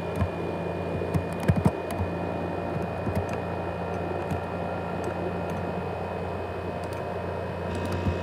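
ASUS X543UA laptop's cooling fan running hard with a steady hum and whine, loud enough that it is likened to a jet engine, with scattered light clicks and knocks.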